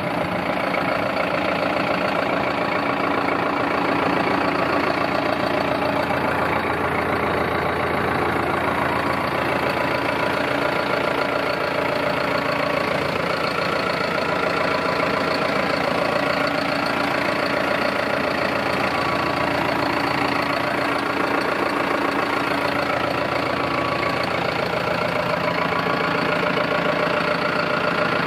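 John Deere 6420S tractor's four-cylinder diesel engine idling steadily, with no change in speed.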